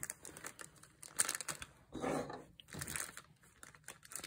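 Clear plastic zip-top bag crinkling and rustling in a series of irregular crackles as it is handled and opened.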